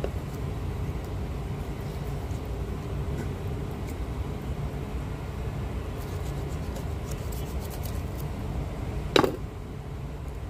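A knife working through the wing joint of a raw chicken, heard as faint scattered clicks, over a steady low rumble. About nine seconds in comes one brief, sharp squeak that falls quickly in pitch.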